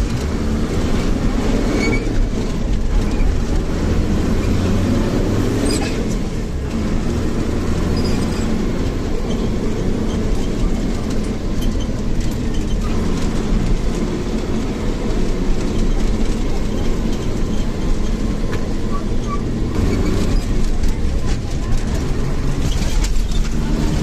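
A bus running on a road: steady engine and road noise with frequent knocks and rattles throughout.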